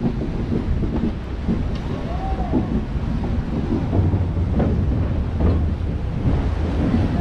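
Passenger train running on rails, heard from an open coach window: a steady low rumble of the wheels with wind buffeting the microphone, and a few short knocks from the track.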